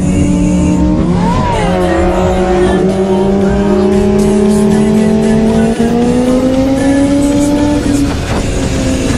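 Sport motorcycle engine running hard at highway speed over wind rush. There is a quick rev blip about a second and a half in, then the engine pitch climbs slowly as it accelerates.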